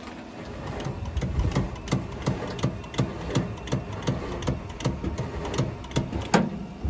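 Truck engine being cranked by its starter on a jump start, turning over at about three pulses a second without firing.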